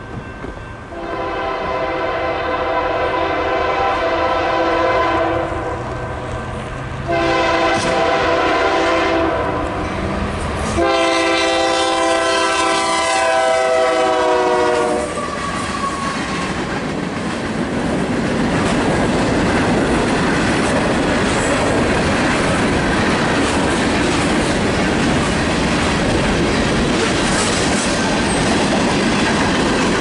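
Locomotive air horn sounding three long blasts for a grade crossing, the last one dropping slightly in pitch as the lead unit passes. Then the diesel locomotives and the freight cars of a manifest train roll by close up with a steady rumble and wheel clatter.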